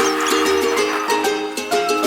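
Background music: repeated chords in a steady, even rhythm, with light percussive ticks.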